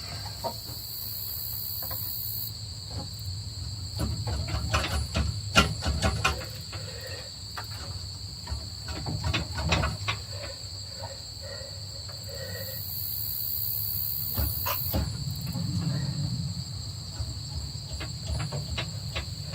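Scattered metal knocks and clanks as a Massey Ferguson 165's cylinder head is pried and yanked at, stuck on its head studs and dowel pins. The knocks cluster in the first half and come again near the three-quarter mark. Crickets chirp steadily in the background.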